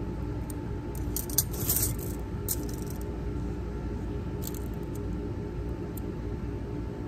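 Stainless-steel surgical instruments (ringed scissors and clamps) clinking and jingling against one another as they are handled on the instrument stringer, loudest in a cluster about one to three seconds in, with a few single ticks later, over a steady low hum.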